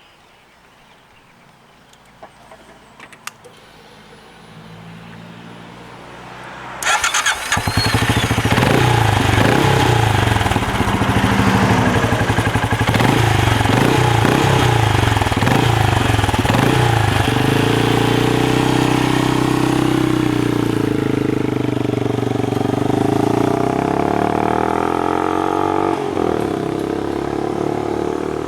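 Benelli Imperiale 400's single-cylinder engine starting up. A few faint clicks and a low hum come first, and the engine catches about seven seconds in. It is then revved in a series of short blips, and from around the middle it runs steadier with slow rises and falls in revs.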